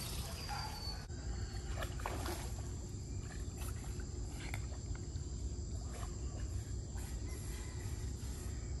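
Outdoor ambience: a steady low rumble with scattered short, high animal calls.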